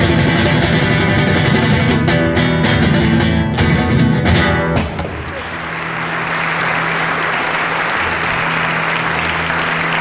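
Nylon-string acoustic guitar played with fast, hard strums that end the piece abruptly about five seconds in, followed by an audience applauding.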